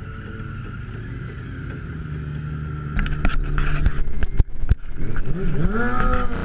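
Handling noise from an action camera mounted on a motorcycle: a hand grabs the camera and its mount, giving sharp knocks and clicks from about three seconds in and a wavering rubbing sound near the end, over a steady low hum.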